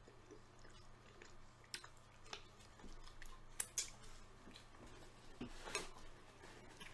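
Faint close-up sounds of a person eating: chewing with a handful of sharp, wet lip smacks scattered through.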